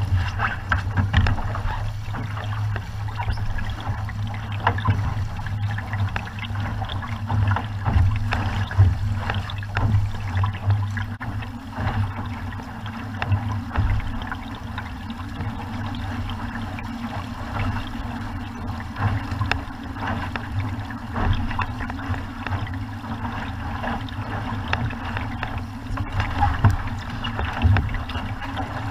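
A VX One sailboat under way, its hull rushing and splashing through the water, with a steady low rumble of wind buffeting the microphone.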